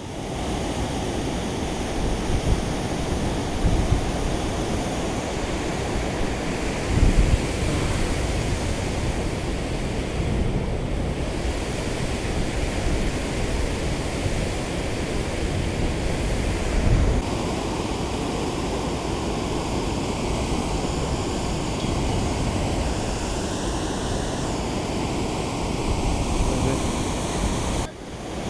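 Steady rush of churning water released below a dam, with wind buffeting the microphone in a few low gusts.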